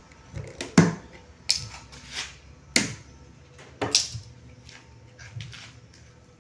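Handling noise of cord being pulled and tied tight around a freshly glued wooden ama: a handful of short, sharp knocks and scrapes at irregular intervals.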